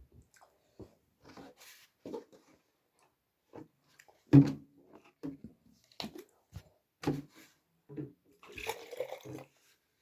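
Close-miked eating and drinking sounds: a string of short, irregular wet mouth noises, sips and swallows, the loudest about four seconds in and a longer slurping stretch near the end.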